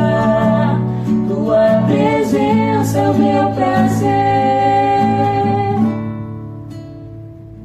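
Closing bars of a worship song: a voice sings wordless bending notes over guitar and steady accompaniment, then a final chord is held and fades out from about six seconds in.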